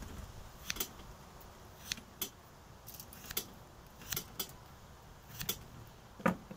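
A kitchen knife cutting notches around peeled potatoes threaded on a metal skewer, the blade clicking against the skewer and the wooden cutting board about eight times at uneven intervals, with a louder knock near the end.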